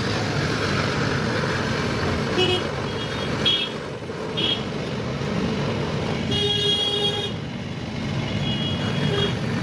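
Handheld butane torch hissing steadily while it brazes leaks shut on an AC indoor unit's copper coil, over street traffic noise. Vehicle horns toot several times, mostly briefly, with one longer blast about six and a half seconds in.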